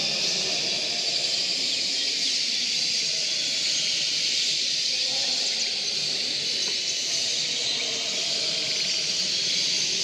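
Dense, steady chorus of many caged canaries singing and chirping at once, a high, shimmering wash of overlapping song, with a low hubbub of voices underneath.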